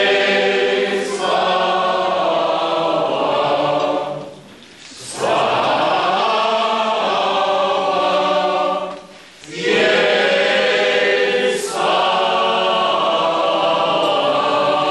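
A choir singing together in several voices, in three phrases with short pauses between them.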